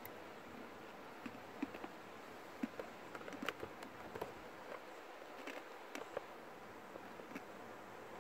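Faint, irregular small clicks and crackles close to the microphone, over a quiet steady hiss of background air.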